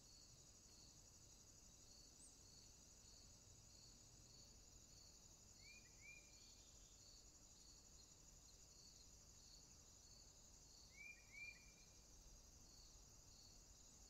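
Faint field insects: a continuous high trilling with a steady rhythm of cricket chirps, about one and a half a second. A brief two-note call comes twice, near the middle and near the end.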